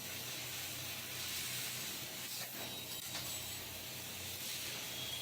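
Steady hiss over a low, even machine hum, with a few faint ticks.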